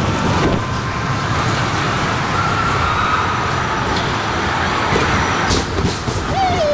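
Steady rumbling rush of an amusement ride in motion, with a sharp knock about five and a half seconds in and a brief shout near the end.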